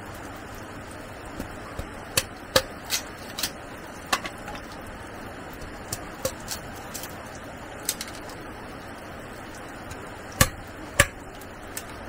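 A string of irregular sharp taps and knocks over a steady background, the two loudest coming close together near the end.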